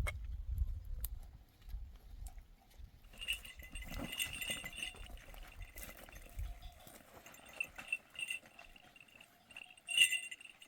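Bells on grazing sheep clinking and ringing irregularly, with a louder clink near the end. A low rumble runs through the first half.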